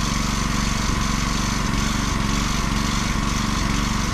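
Kärcher gas pressure washer's small single-cylinder engine running steadily, being warmed up so its oil can be changed.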